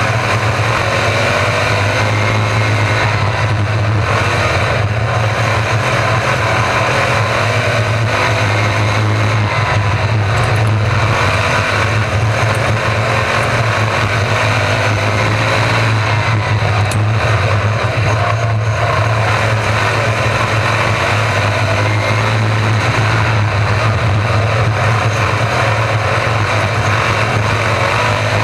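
A pack of 305 V8 sprint cars racing on a dirt oval. Their engines make a loud, continuous drone, with pitch rising and falling again and again as cars rev through the corners and pass by.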